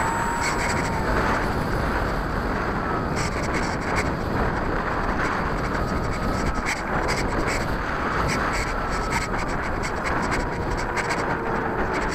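RC airplane in flight, heard from its own onboard camera: wind rushes steadily over the microphone, and under it the motor and propeller give a faint whine that drifts up and down in pitch.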